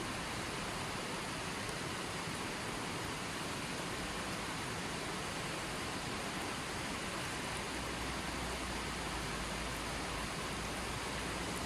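Running water: a steady, even rush without changes.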